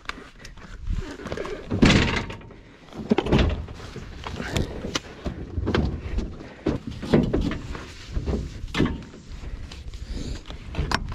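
Pit bike being loaded into a pickup truck bed: a series of irregular thunks and clunks as the bike knocks against the tailgate and bed liner, the loudest about two seconds in.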